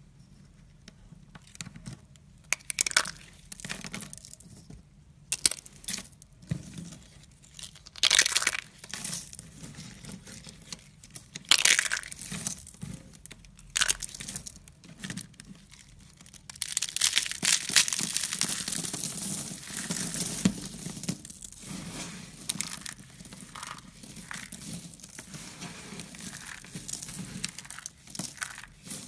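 Irregular crinkling and crushing handling noises, with several sharp louder bursts and a longer dense stretch of crackling a little past the middle.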